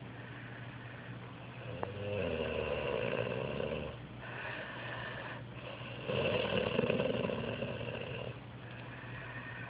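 A man snoring in his sleep: two long snores, starting about two and six seconds in and each lasting about two seconds, with quieter breathing between them.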